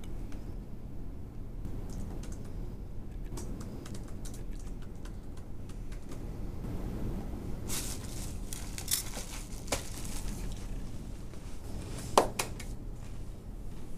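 Room tone with a steady low hum, broken by scattered small clicks and ticks, with one sharper, louder click near the end.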